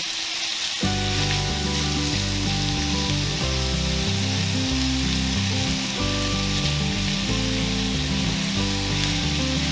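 Ground beef sizzling in a hot enameled cast-iron skillet as it is stirred and broken up with a silicone spatula, a steady frying hiss. Background music with sustained low notes comes in about a second in.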